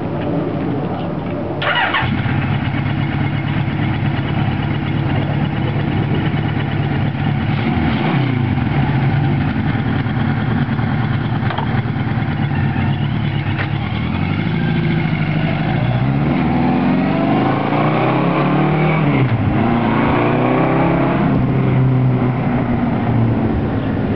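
1979 Kawasaki KZ1000 LTD's air-cooled inline-four running loud through a MAC two-into-one slash-cut exhaust. After a sharp sound about two seconds in, it holds a steady low note with one short dip. From about the middle, the engine note climbs, drops back, and climbs again.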